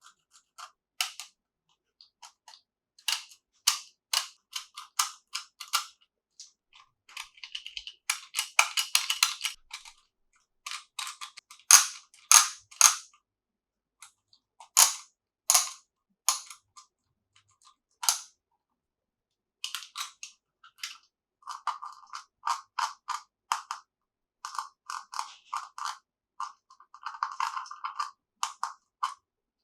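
Small plastic toy pieces being handled: a string of sharp clicks and taps at irregular intervals, with a denser crackling patch and quick rattling runs of clicks.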